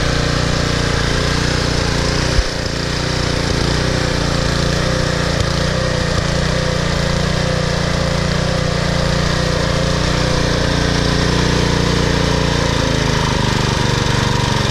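Troy-Bilt Super Bronco tiller's 208 cc single-cylinder clone engine running steadily on old gas, with its carburetor freshly cleaned of a clogged jet. A single sharp knock sounds about two and a half seconds in.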